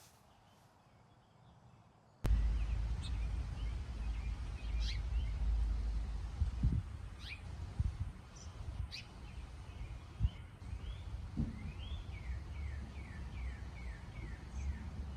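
Near silence for about two seconds, then wild birds calling over a low rumble: scattered single chirps, and from about twelve seconds in a quick run of about eight short falling notes.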